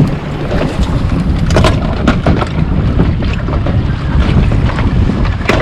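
Wind rumbling on the microphone over water washing against a small boat's hull, with a few short knocks about two seconds in.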